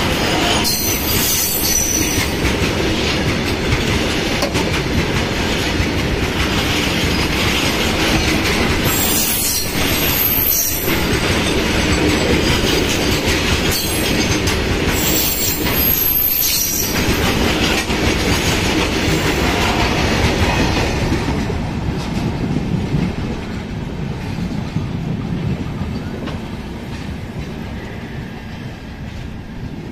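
Red-and-grey LHB passenger coaches of an express rolling past close by at speed: a steady rumble and clatter of wheels over the rail joints, with brief high-pitched wheel squeals a few times. The noise eases off over the last several seconds as the rear of the train, its generator car, goes by.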